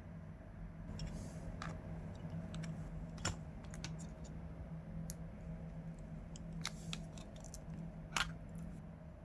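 Scattered small clicks and light scrapes, about seven or eight at irregular intervals, of hands and small tools working on a laptop's case and parts, over a steady low hum.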